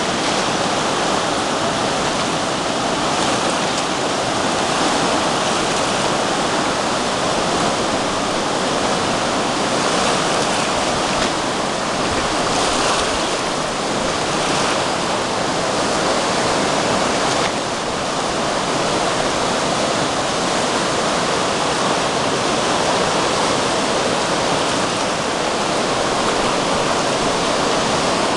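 A river in flood, fast floodwater rushing and churning around a stone bridge pier. It makes a loud, steady rushing noise.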